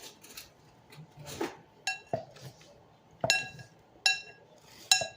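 A spoon clinking against a soup bowl four times, each strike ringing briefly, as the soup is eaten.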